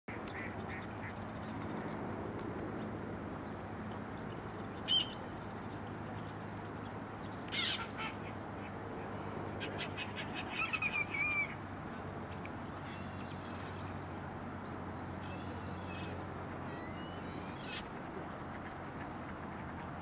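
Marsh birds calling: many short, high chirps of small birds throughout, a louder call about five seconds in and another near eight seconds, then a quick run of about six loud calls between ten and eleven and a half seconds. A steady low hum runs underneath.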